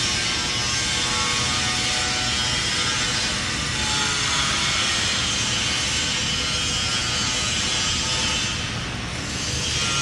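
Steady machinery noise of a large industrial shop, a continuous hum and hiss with several held tones, dipping briefly near the end.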